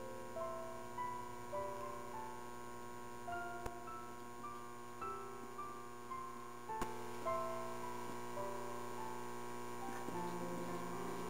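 Background piano music: a slow melody of single notes over a soft sustained backing. Two sharp clicks cut through it, near the middle and about two-thirds of the way in.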